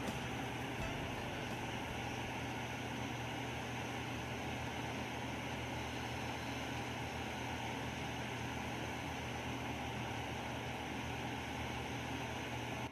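Steady hiss and low hum of background noise from the recording once the song has finished, with no music, cutting off suddenly at the end.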